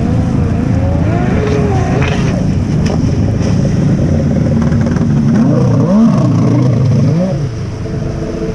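Jet ski engine running hard under way, its pitch rising and falling unsteadily, then easing off near the end.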